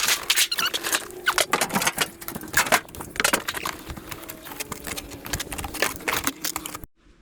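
Two-wheeled hand trolley loaded with a 30 kg anvil, rattling and squeaking as it is moved: a rapid, irregular clatter of knocks with squeaks, cutting off suddenly near the end.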